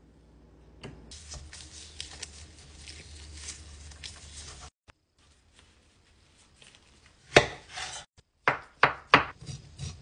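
Kitchen knife chopping a carrot on a wooden cutting board: a run of sharp chops in the last few seconds. Before them come a few seconds of softer rubbing and scraping.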